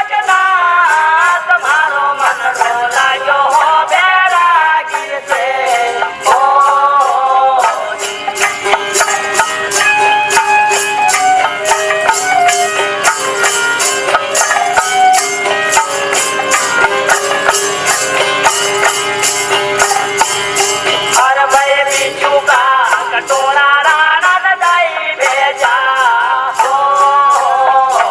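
Indian folk-style instrumental music: a steady drone under a wavering melody, over a fast, even jingling percussion beat.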